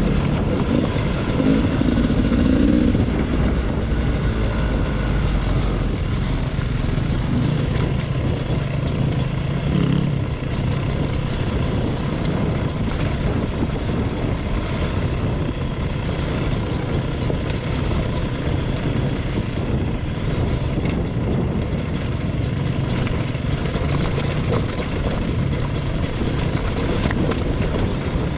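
Dirt bike engine running steadily while riding a trail, with wind noise over it.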